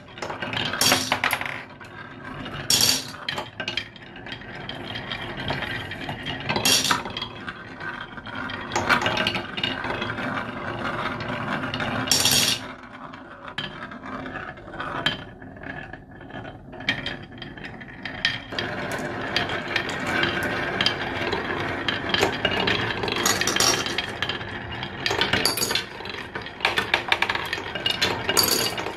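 Glass marbles rolling down the winding grooves of a wooden HABA slope marble run: a continuous rolling rattle over the wood, dotted with sharp clicks and a few louder clacks as the marbles strike the curved groove walls.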